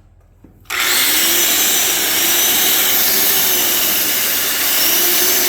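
Milwaukee 15-amp, 6600 rpm corded angle grinder switched on about a second in and running free at full speed with no disc load, a loud steady motor whine.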